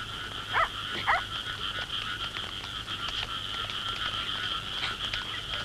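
Night chorus of frogs and insects, a steady high trilling, with two short rising calls about half a second and a second in.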